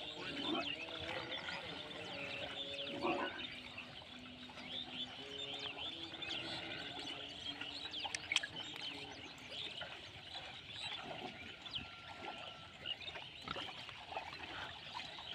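A herd of pigs grunting and snuffling in a muddy wallow, over a busy background of short high chirps.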